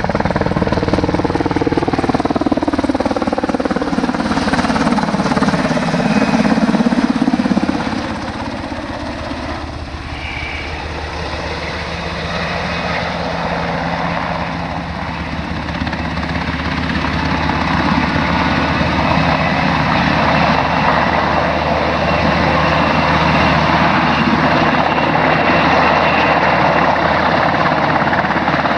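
Military helicopters flying low overhead, with a steady rotor beat and engine whine. The pitch slides down as one passes, the sound drops away suddenly about eight seconds in, then builds up again as a helicopter comes back round.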